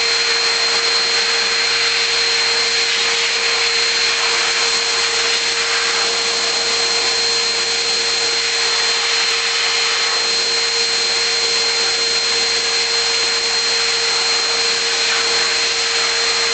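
Electric dog-grooming clipper running steadily as it is worked through a dog's coat, a constant motor hum with a thin high whine over it.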